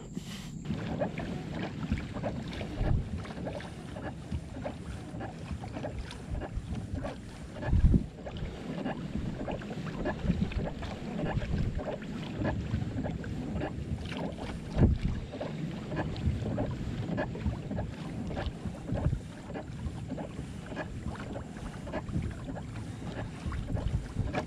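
Fishing kayak under way at trolling pace: water lapping against the hull with wind on the microphone, and frequent small knocks and clicks. A louder low thump comes about 8 seconds in and another about 15 seconds in.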